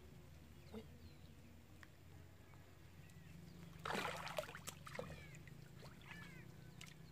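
A hooked fish thrashing and splashing at the surface of shallow canal water as it is pulled in on a hand line, with one loud splash about four seconds in and a few smaller splashes after.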